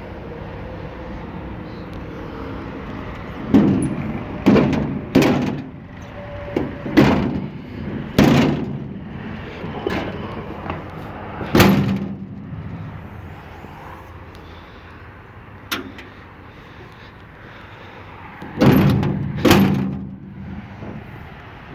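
Sheet-metal side shields on a John Deere L340 large square baler being swung and shut. They make a series of about ten metal clanks and bangs, with a loud pair near the end, over steady background noise.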